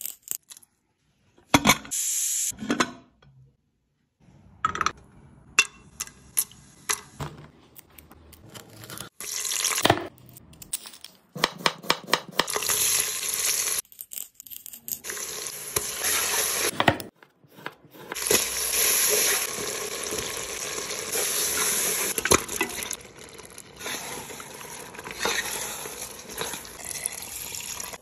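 A run of close-up kitchen sounds, cut together with abrupt breaks: short crisp handling noises and taps, with longer hissing stretches of food frying in a pan in the middle and latter part.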